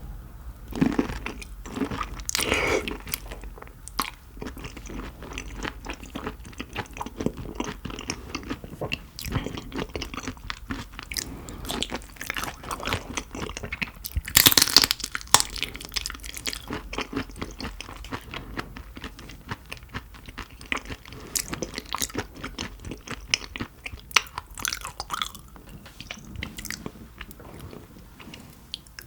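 A person chewing and crunching food close to the microphone, with many irregular crackles and a louder burst of crunching about halfway through.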